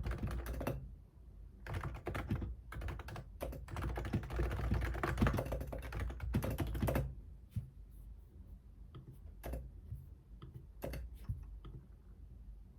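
Typing on a computer keyboard: fast runs of keystrokes with a brief pause about a second in, then slowing to a few scattered key presses after about seven seconds.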